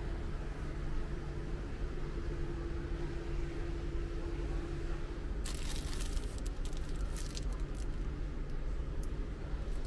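Wrapped packets crinkling and crackling as they are handled, starting about halfway through, over a steady low hum.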